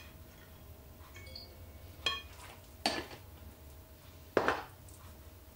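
A metal spoon clinking against a glass baking dish three times, sharp clinks with a short ring, as a spoonful of ground black pepper is tipped into the dish.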